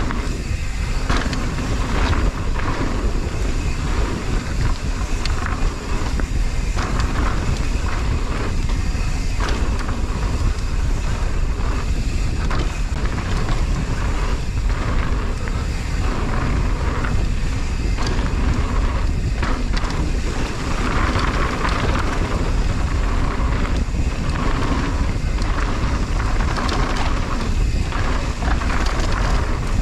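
Wind buffeting the microphone as a mountain bike rolls fast down a dirt trail, with tyre noise and frequent clattering knocks from the bike over bumps.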